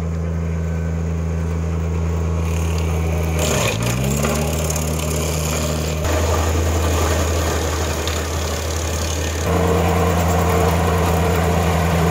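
Kubota compact tractor's diesel engine running under load, driving a PTO-powered stump grinder whose high-speed rotor is cutting into a wood stump. A little over three seconds in the engine pitch dips sharply and climbs back as the cutter bites and pulls it down, and a hiss of grinding wood joins the engine from there; about nine and a half seconds in it gets louder again.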